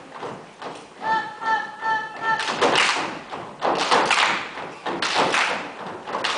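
Gumboot dancers stomping and slapping their rubber boots on a wooden stage: a loud, irregular run of thuds and slaps. A high pitched call is held for about a second, starting about a second in.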